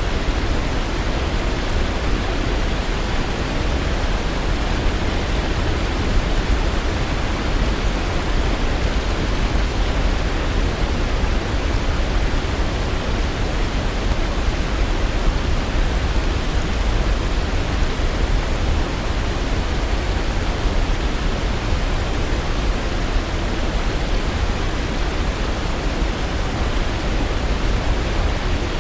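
Waterfall rushing steadily: a dense, unbroken wash of falling water, deepest in the low end.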